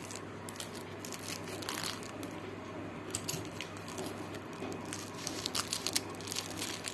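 Crinkling and rustling of a newspaper-and-clear-plastic coin packet being handled and turned over in the hands, with irregular crackles throughout.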